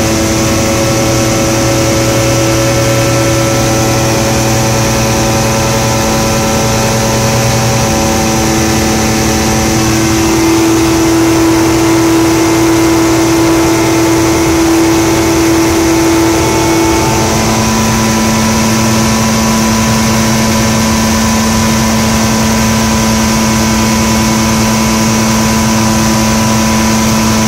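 Single-engine light aircraft's piston engine and propeller droning steadily in cruise, heard loud from inside the cockpit; the engine note shifts a couple of times as the power changes.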